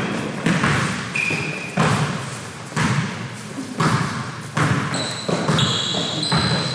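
A basketball bouncing on a gym floor, about one bounce a second, each bounce echoing in the hall. Short, high squeaks come in the second half.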